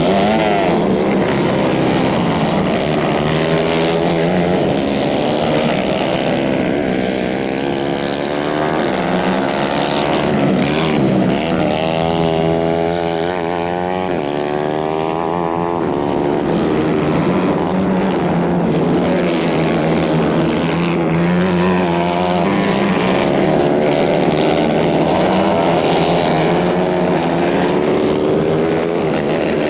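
Several 150 cc racing kart engines running at high revs, their pitch rising and falling as the karts accelerate out of corners and back off.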